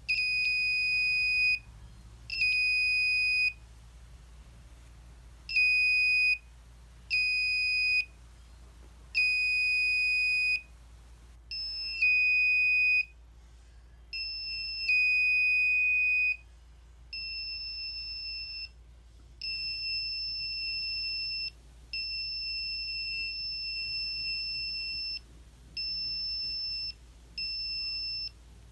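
Buzzer of an Arduino ultrasonic-sensor intruder alarm sounding a steady high-pitched tone that switches on and off irregularly in stretches of about one to two seconds, the alarm being set off as something comes within the sensor's range. About halfway through, the tone turns slightly higher and softer and the stretches grow longer.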